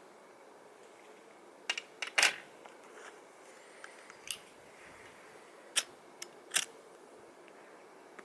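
Sharp clicks and taps of small hard objects being handled, over a low steady hiss. The loudest is a cluster of clicks about two seconds in, followed by a few single clicks spread through the rest.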